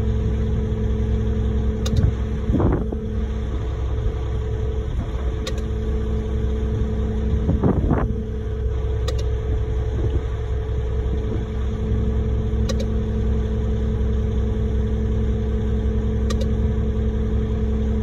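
Concrete mixer truck's diesel engine idling steadily, a constant low hum, with two brief louder sounds about five seconds apart.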